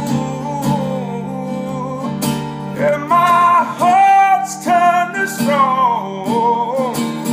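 Man singing an acoustic soul song over a strummed acoustic guitar, drawing out notes that bend up and down in the second half.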